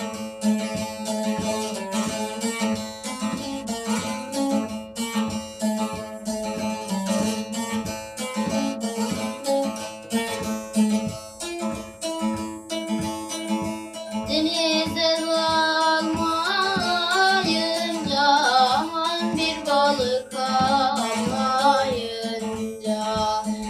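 Bağlama (long-necked Turkish saz) played with fast plectrum strokes over a steady drone string, in a folk melody. A singing voice comes in a little past halfway and carries on over the playing.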